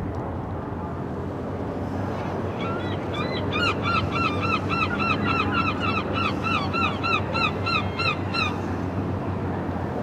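A bird calling in a rapid run of short, repeated calls, about four a second, starting a few seconds in and stopping near the end, over a steady low hum.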